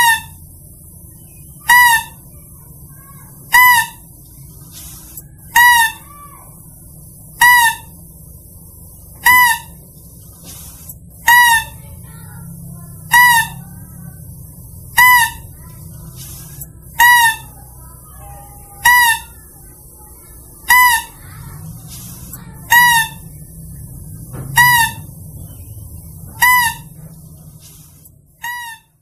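Lure call for the lesser mouse-deer (kancil): one short pitched cry repeated evenly about every two seconds. A faint steady hiss lies behind it.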